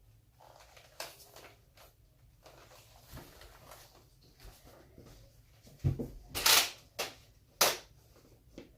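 Hard plastic handling noises from Nerf blasters being moved: light rustling and knocks, then a thump about six seconds in and three sharp clacks.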